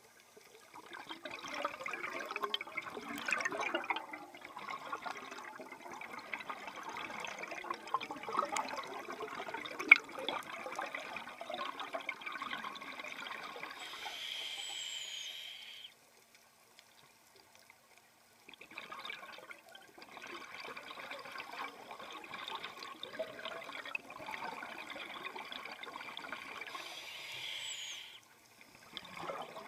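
Scuba regulator heard underwater through the diver's own breathing: two long stretches of bubbling exhaust as the diver breathes out. Each ends with a short hiss from the regulator's demand valve on the in-breath, and a couple of seconds of near silence fall in the middle.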